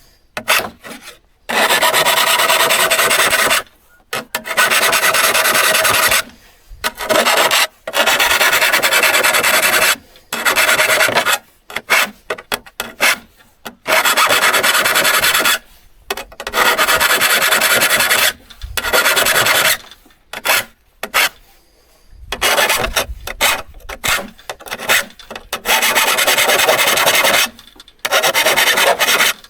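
Steel hand-saw blade being abraded by hand: rasping strokes in runs of one to three seconds, broken by short pauses.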